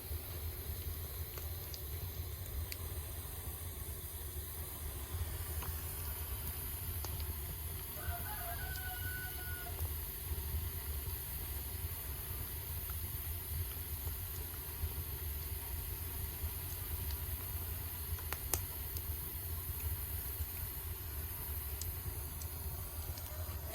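Wood fire burning in a traditional agungi firebox under a pot of boiling chicken: a steady low rumble and hiss of fire and steam, with a few sharp crackling pops. A rooster crows once about eight seconds in, and another call begins near the end.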